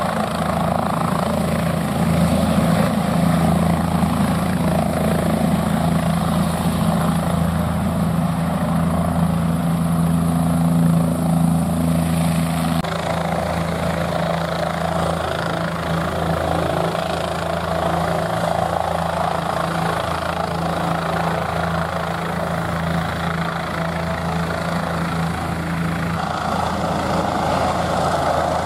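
Bell 407 helicopter's single turboshaft engine and rotors running steadily. A low steady hum in the sound drops away near the end.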